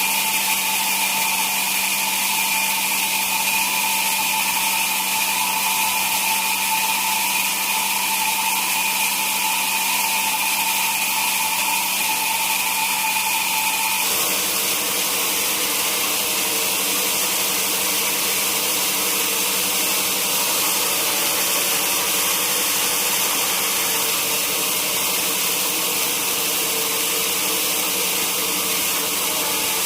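Sawmill machinery running steadily, a constant machine noise with whining tones; about halfway through the tones change abruptly, the higher whine stopping and a lower one taking over.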